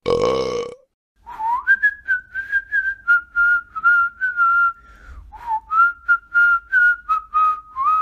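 A loud burp, under a second long, followed by a whistled tune over a light, steady clicking beat.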